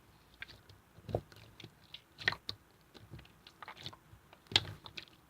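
Clear slime being squished and pressed by hand, making irregular sticky clicks and small pops with a few louder squishes.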